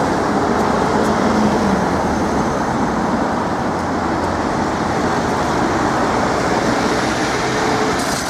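Steady road traffic noise from cars driving along a busy multi-lane road over an open level crossing.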